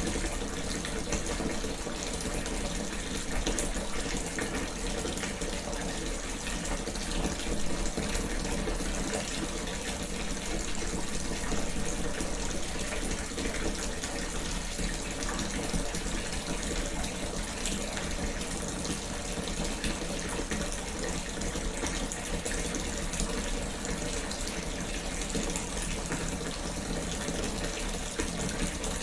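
Bathtub filling from a running tap: a steady, unbroken rush of water pouring into the bath.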